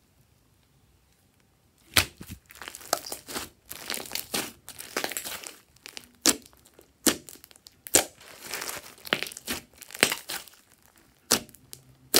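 Glossy slime being squeezed and kneaded by hand, starting about two seconds in: wet crackling squelches with a handful of sharp, loud pops.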